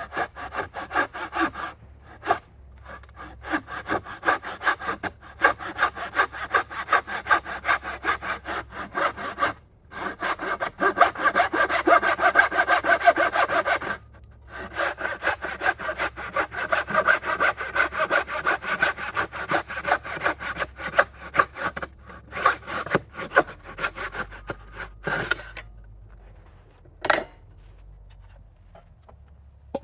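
Hand saw cutting through wood in quick, steady strokes, with a few short pauses, the strokes thinning out near the end. A couple of single knocks follow.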